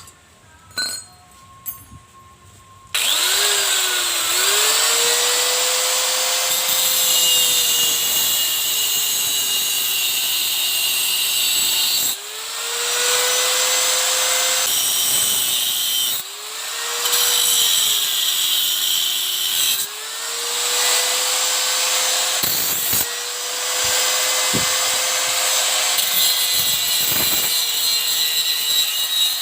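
A grass cutter's small petrol engine starts suddenly about three seconds in and runs loud, its speed rising and falling over and over as the throttle is worked. It dips briefly several times.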